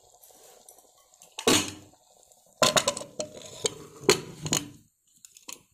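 Pressure cooker lid being set on the pot and locked shut. It gives one metal knock, then a quick run of clattering metal-on-metal clanks over about two seconds.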